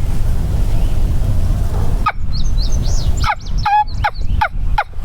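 A low rumble for about two seconds cuts out abruptly, and turkey calling follows: a few high short notes, then a quick run of short falling yelps, about four a second.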